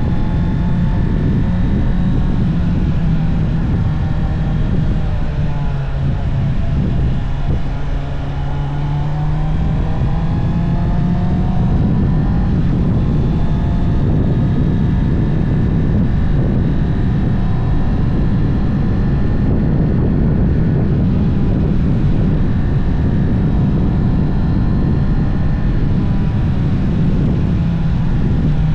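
Honda CB650R's inline-four engine running through its stock exhaust while riding, mixed with heavy wind noise on the microphone. Around six to nine seconds in, the engine note drops lower, then climbs back up and holds steady.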